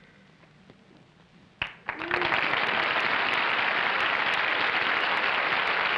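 A studio audience breaking into steady applause about two seconds in, after a short near-quiet stretch and a sharp click.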